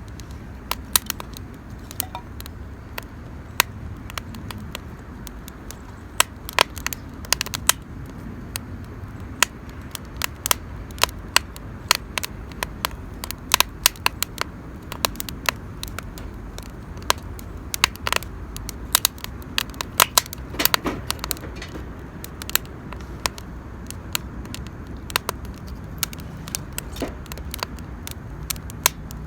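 Wood campfire burning, the firewood crackling with irregular sharp pops and snaps.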